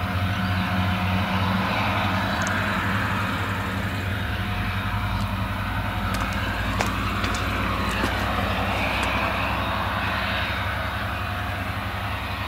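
Claas Jaguar self-propelled forage harvester working under full load, cutting and chopping whole-crop silage. It makes a steady deep engine drone under a broad rushing hiss that swells and eases, with the truck running alongside adding to the drone.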